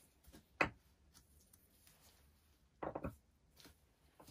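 A sharp click about half a second in, then a quick run of about four clicks near three seconds: small hard parts being handled and set down by hand on a workbench.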